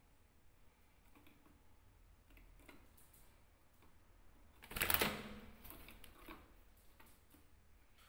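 Canaries moving about in a wire cage: faint scattered ticks and clicks on the perches and bars, and one short, loud rustle about five seconds in.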